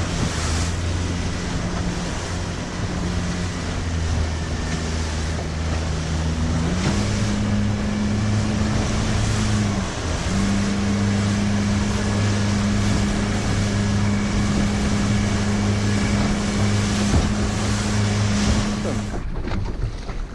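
Yamaha outboard motor driving a small aluminium boat at speed: a steady engine note over water rushing past the hull and wind buffeting the microphone. The engine pitch rises about seven seconds in, dips briefly near ten seconds, and the engine note drops away near the end.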